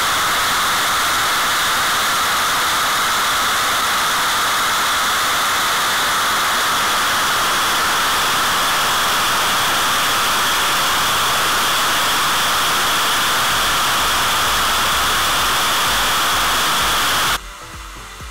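Steady, loud hiss of a noise test signal played through two 6.5-inch car speakers that are high-passed at 100 Hz, so little bass comes through. It cuts off suddenly near the end.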